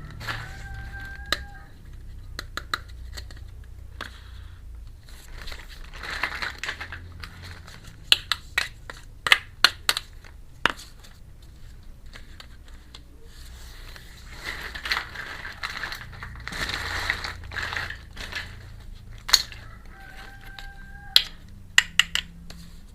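Small plastic toy pieces of a miniature kitchen set clicking and tapping against each other, with plastic packaging crinkling and tearing in two longer stretches. A short steady beep-like tone sounds near the start and again near the end.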